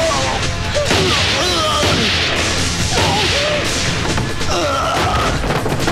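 Dramatic action-film soundtrack: background music with wavering pitched lines, cut by several sudden crashes or hits.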